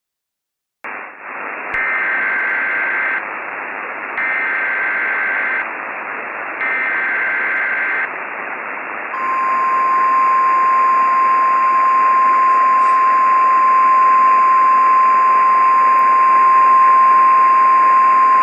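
Emergency Alert System broadcast over radio static. About a second in, the hiss starts, then come three short bursts of warbling SAME header data tones. These are followed by a long, steady single-pitch NOAA Weather Radio warning alarm tone, the signal that a National Weather Service warning is about to be read.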